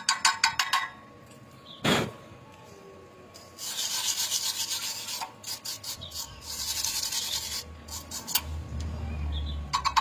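The stick-weld bead around a pipe-to-plate fillet joint being rubbed and scrubbed clean of slag, in two spells of hissy scraping, with a single sharp knock shortly before. A rhythmic clicking runs through the first second.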